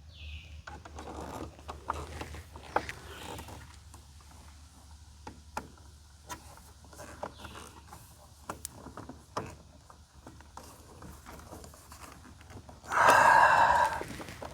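Scattered light clicks and taps of hand work with a screwdriver and small screws on the refrigerator's igniter mounting, over a low steady hum. Near the end comes a louder rushing noise, about a second long.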